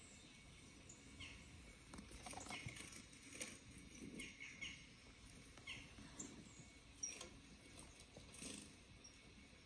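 Faint, scattered short bird chirps from the outdoor video playing on a tablet's speaker, with a few light ticks between them.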